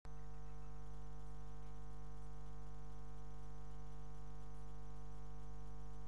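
Steady electrical mains hum with a buzz of evenly spaced overtones above it, unchanging and with nothing else over it.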